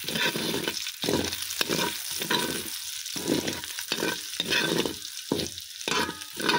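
Metal ladle scraping and stirring chopped garlic, onion and ginger around a hot wok, about two strokes a second, over a steady sizzle of the aromatics sautéing in oil.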